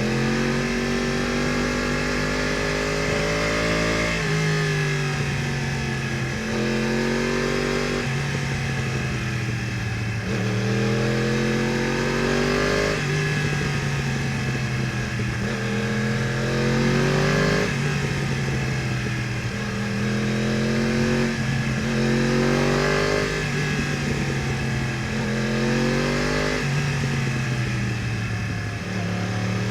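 2015 Yamaha R1's crossplane inline-four engine, breathing through an Akrapovič exhaust, pulling hard under acceleration. Its pitch climbs for a few seconds and then drops sharply, about eight times, as it is ridden up through the gears.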